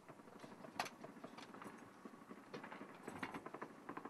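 Faint, irregular clicks and knocks, with one sharper knock about a second in and a quick cluster of them near the end.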